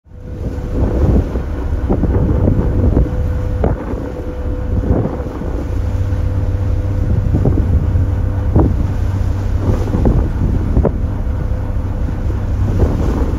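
Strong wind buffeting the phone's microphone: a heavy low rumble with repeated gusts.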